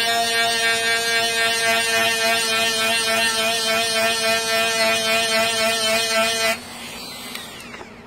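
Small handheld rotary tool running at steady high speed with an even whine as it grinds down the metal shaft of an electric toothbrush head; it is switched off abruptly about six and a half seconds in.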